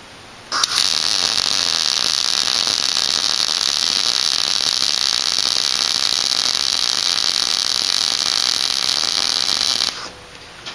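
MIG welder arc laying one continuous bead of about nine seconds: a loud, steady hiss that starts about half a second in and cuts off near the end.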